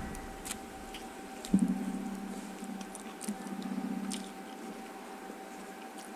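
A person chewing a mouthful of rice and food, with wet mouth sounds and a few faint clicks, and a single knock about a second and a half in.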